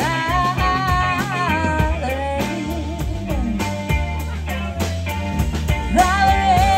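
Live band music: a lead guitar line with bending, sliding notes over bass and steady drums.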